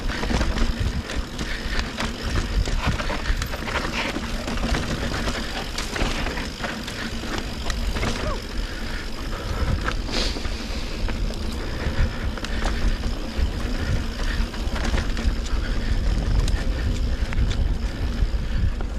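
Mountain bike riding down a rough dirt trail at speed: a steady rush of wind and low rumble, with frequent rattles and clicks from the tyres and bike over the ground.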